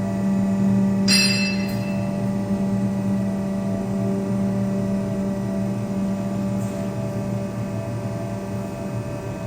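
Four-roll plate bending machine running with a steady electric drive hum. About a second in, a metallic clang rings out briefly and fades.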